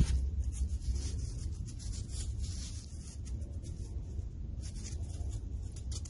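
Nitrile-gloved hands turning and rubbing a small-engine piston, giving faint scattered rubbing and light handling clicks over a low steady hum.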